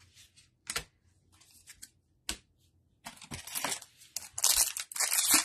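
Plastic wrapper of a trading card pack being torn open and crinkled, starting about three seconds in and growing louder toward the end. Before it, a few light clicks of cards being handled.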